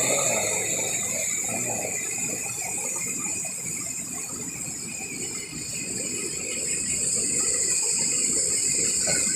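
A small waterfall and stream running over rocks, a steady rushing of water, with a steady high-pitched drone over it.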